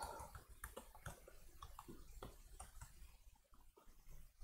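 Faint typing on a MacBook laptop keyboard: soft, irregular key clicks.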